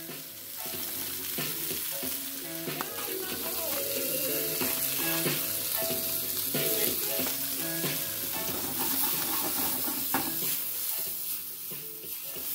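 Sliced bell peppers and jalapeños sizzling in oil in a skillet over a gas flame, with the pan shaken to toss them near the end.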